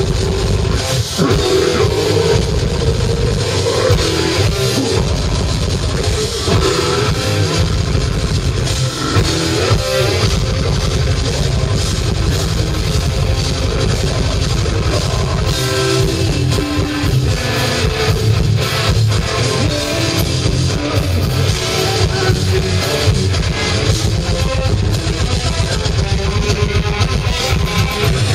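Live technical death metal band playing at full volume: heavily distorted electric guitars over dense, fast drumming, with harsh growled vocals.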